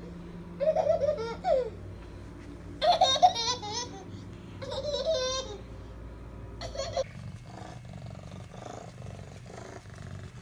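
Baby laughing in four high-pitched squealing bursts over the first seven seconds, then the sound drops to a quieter background.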